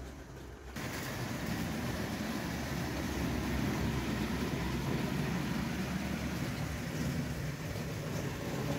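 Bing live steam tinplate train running on 0 gauge tin track: a steady rumbling hiss that comes up sharply about a second in.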